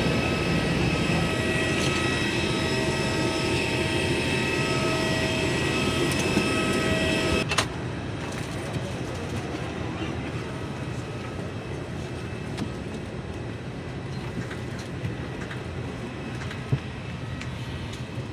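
Steady jet aircraft whine on the airport apron, several held tones over a loud rush. About seven and a half seconds in it cuts to the quieter steady hum inside an airliner cabin, with a few faint clicks.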